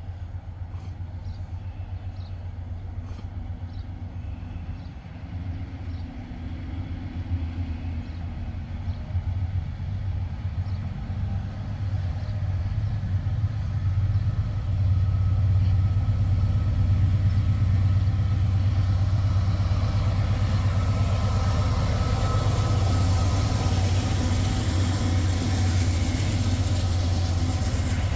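Norfolk Southern diesel locomotives hauling an empty coal train approach slowly. Their low, steady engine rumble grows louder through the first half and then holds, and a higher rushing noise builds near the end.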